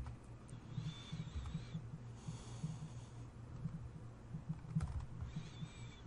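A few faint computer mouse clicks over a low steady hum, with two soft breaths, one about a second in and one near the end.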